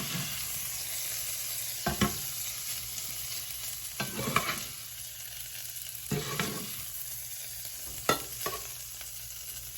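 Steak sizzling in a hot pan, with a utensil scraping and knocking against the pan about every two seconds as the meat is lifted out.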